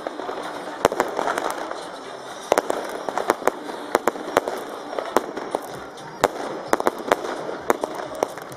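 Fireworks going off: many sharp bangs at irregular intervals, several a second at times, over a continuous crackle.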